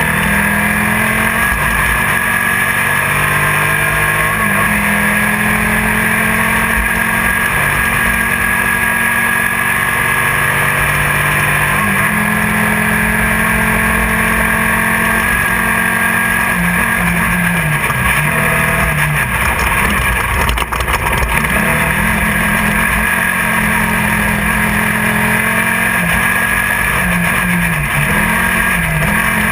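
Class 1600 desert race buggy's air-cooled Volkswagen engine running hard at speed, heard from inside the car, its pitch rising and falling as the throttle comes on and off over the terrain. A sharp knock is heard about twenty seconds in.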